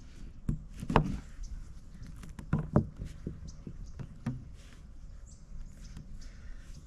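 A handful of irregular knocks and taps, the sharpest about a second in and two more close together near the middle, over faint rustling: hands and tools working at an old RV roof skylight whose screws have been exposed.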